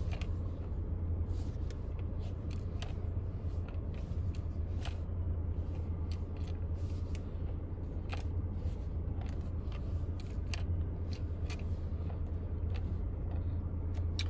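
Something loose rattling behind the steering-wheel airbag cover of a 2018 Chevy Equinox as the wheel is turned: irregular light clicks and ticks scattered throughout, over a steady low hum.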